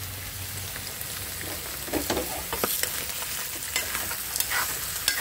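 Chunks of meat sizzling in a black iron karahi over a gas flame, stirred with a steel spoon that scrapes and clinks against the pan several times.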